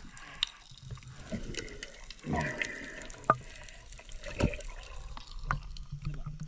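Water splashing and sloshing, with a few sharp knocks.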